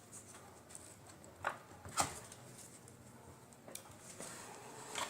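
A few sharp clicks and taps from handling cable connectors on an LCD TV board while plugging in the LVDS cable, the loudest two about a second and a half and two seconds in.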